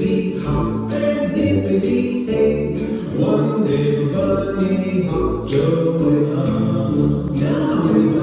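A recorded children's counting song about bunnies hopping away, sung by voices over a light backing track with a regular beat.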